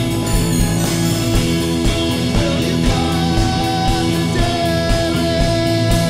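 Rock band playing: guitar over drums keeping a steady beat, with a high melody line holding one long note through the second half.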